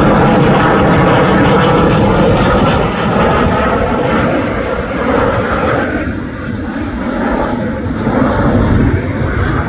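Twin-engine Boeing Super Hornet fighter jet passing low on landing approach with its gear down: a loud steady jet rush with a faint whine in it, easing off after about six seconds as it moves away.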